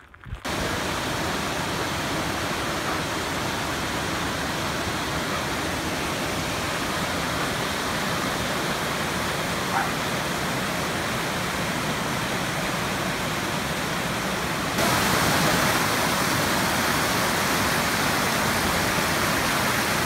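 Creek and waterfall swollen with high snowmelt: a steady, even rush of water, stepping up louder about fifteen seconds in.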